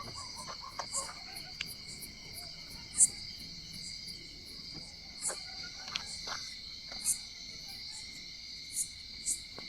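Insects trilling steadily, like a cricket chorus, with a sharper high chirp every second or two and a few faint clicks.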